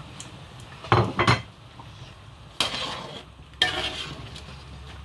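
Spoon and cooking pot: two sharp clinks about a second in, then two short spells of scraping and stirring as cut snail is added to a pot of soup.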